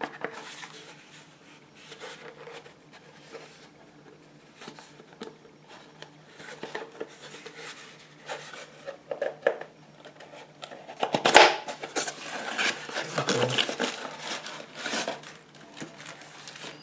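A small cardboard accessory box being opened and its contents handled: scattered rustles, taps and scrapes of packaging, growing busier and louder over the last five seconds or so.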